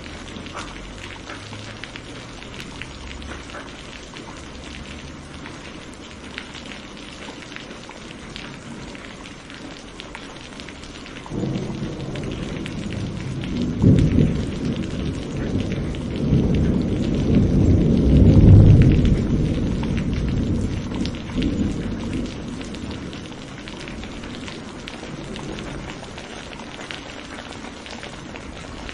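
Steady rain falling, with a long low roll of thunder that breaks in about a third of the way through, swells twice and fades out again.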